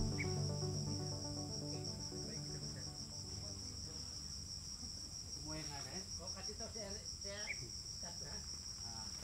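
Steady, high-pitched insect trill of a tropical insect chorus, finely pulsing, with background music fading out over the first couple of seconds and a few faint wavering calls in the middle.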